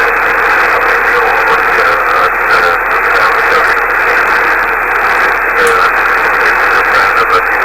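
Shortwave radio receiver hiss: steady band noise filling the narrow single-sideband audio passband, with no clear signal coming through.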